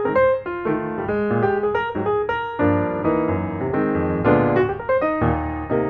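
Background piano music: a steady run of notes and chords, several per second.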